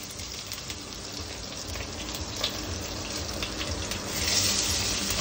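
Onions frying in hot oil in a pan: a steady sizzle with scattered crackles that grows louder about four seconds in.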